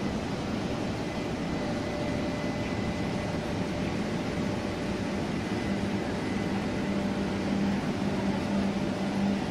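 Taiwan Railway E200-class electric locomotive E222 hauling passenger coaches out of a station: a steady rumble of the train rolling over the rails. A low steady hum comes in a little after halfway and holds.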